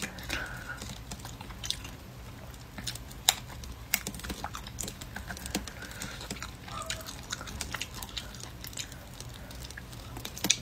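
Close-up chewing and biting on tough meat that has dried out like jerky, picked off small bones by hand, with scattered sharp clicks and small crunches; the sharpest click comes about three seconds in.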